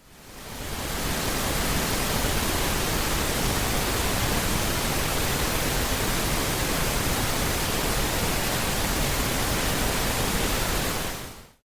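Pink noise: a steady, balanced hiss spread across the whole range, less harsh than white noise. It fades in over the first second and fades out near the end.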